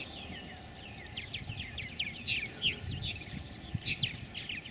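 Purple martins calling in the background: many short, quick downward chirps overlapping one another, over a faint low rumble.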